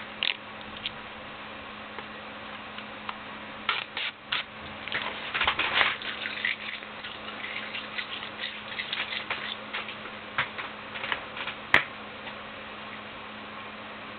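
Hands handling a plastic Blu-ray case: scattered clicks and rustles, busiest in the middle, with one sharp click about three-quarters of the way in, over a steady low hum.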